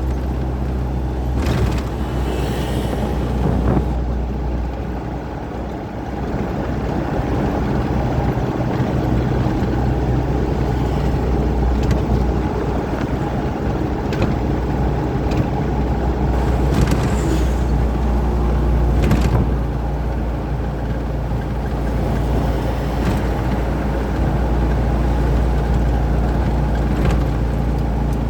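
Truck engine and road noise while driving, a steady low drone with a few short knocks or rattles scattered through it.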